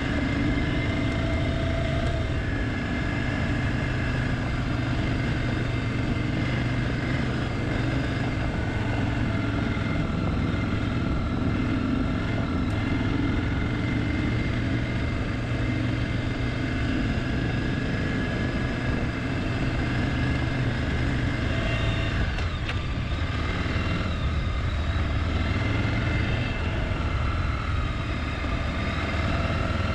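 Trail motorcycle engine running as the bike is ridden along a dirt track, its pitch drifting up and down with the throttle, over a steady rush of wind noise.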